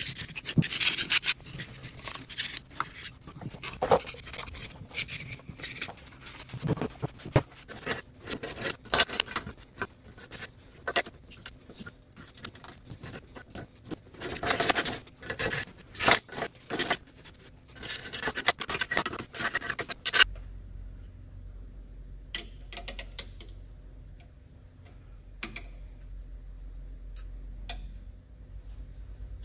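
A stiff brush scrubbing the gears and carrier of a Land Rover Series III differential to clean it: irregular, rapid scraping strokes. About two-thirds of the way through, the scrubbing stops and only a low steady hum with a few faint clicks remains.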